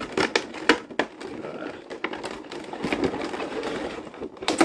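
Cardboard and clear plastic packaging of a boxed collectible figure being handled: several sharp clicks and crinkles, then a longer scraping rustle from about halfway through, ending in a loud click.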